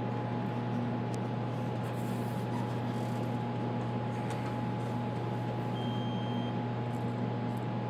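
Steady hum and airy hiss of equipment cooling fans and air conditioning in a telecom room, with a low drone and a faint steady whine running through it. A few faint clicks of fibre pigtails and connectors being handled, and a brief high tone about six seconds in.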